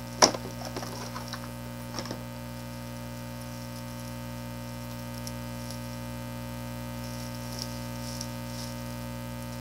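Steady electrical mains hum. A sharp knock comes just after the start and a lighter one about two seconds in. Faint crinkling of a clear plastic bag follows as a keyboard is handled in it.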